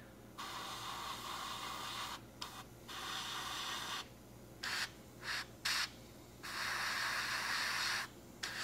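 Gravity-feed airbrush spraying paint in a series of hissing bursts: two sprays of a second or two, then a few short puffs, then the longest spray near the end.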